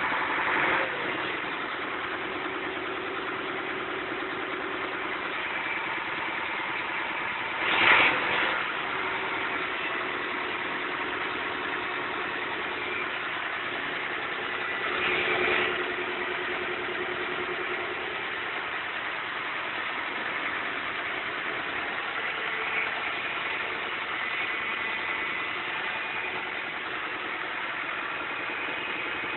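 Ursus 904 tractor's diesel engine idling steadily just after a cold start in freezing weather, with two brief louder surges, about eight and fifteen seconds in.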